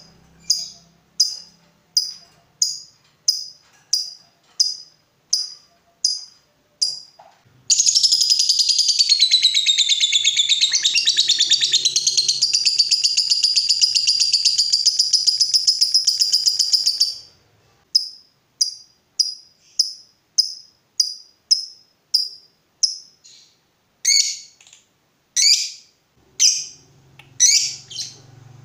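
Lovebird calling: sharp chirps repeated a little over once a second, then about eight seconds in a long, unbroken rapid chattering trill of some nine seconds, the prized 'ngekek panjang'. After it the chirps resume, with a few louder sweeping calls near the end.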